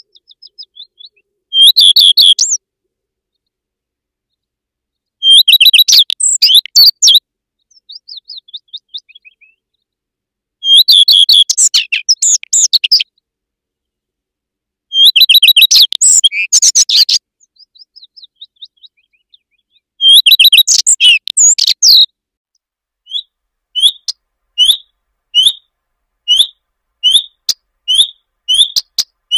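Common redstart singing: short warbled song phrases of about two seconds, repeated every four to five seconds with fainter notes between. Near the end it switches to a steady series of short rising whistled calls, about one and a half a second.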